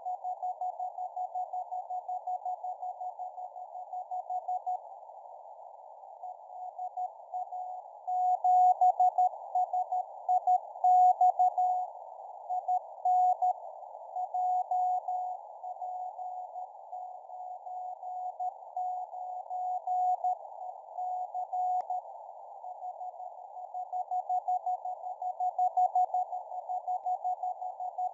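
LA7SIX 6 m (50 MHz) amateur radio beacon heard as a Morse code tone of about 750 Hz, keyed in dots and dashes over narrow-filtered receiver hiss. The signal fades and swells, strongest about eight to twelve seconds in, with a break in the keying around five seconds in.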